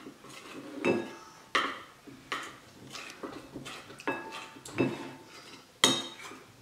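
Metal spoon stirring a cornstarch-and-water slime mix in a ceramic bowl, clinking against the bowl about once or twice a second, with the sharpest clink near the end.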